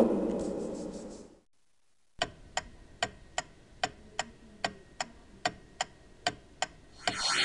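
Clock ticking steadily, about two and a half ticks a second, as a sound effect while the figure stands thinking. Before it, the tail of a heavy thud from the kick at the box wall dies away over the first second or so. Music starts up near the end.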